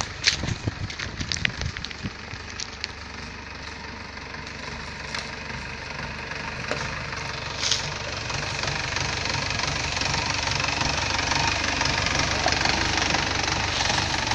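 Mahindra jeep's engine idling steadily, getting gradually louder over the second half. A few sharp crackles sound in the first three seconds.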